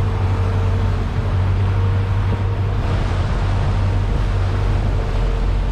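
Outboard boat motor running steadily with the boat under way: a low drone with a steady higher hum, over the rush of wind and water.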